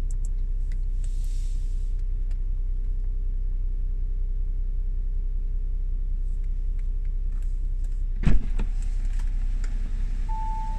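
Audi S7 running with a steady low rumble, heard from inside the cabin. A short sharp thump comes about eight seconds in. Near the end a two-tone warning chime, high then low, signals that a door is open.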